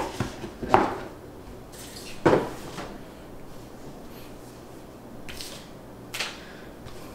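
Empty cardboard packaging being handled and moved aside: a handful of short rustles and knocks, the loudest about two seconds in, with fainter ones later.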